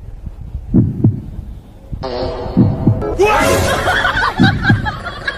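A dog's heartbeat picked up by a karaoke microphone pressed against its body: low double thumps, three times. From about three seconds in, music and other sounds come in over it.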